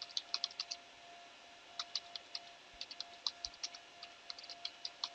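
Computer keyboard typing: quick runs of light keystrokes in several short bursts with brief pauses between. A faint steady hum sits underneath.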